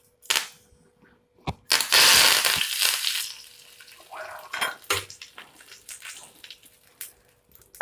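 Fresh curry leaves dropped into a spoonful of hot oil in a small pan: a loud burst of sizzling and spluttering about two seconds in, settling into lighter crackling and pops as the leaves fry crisp.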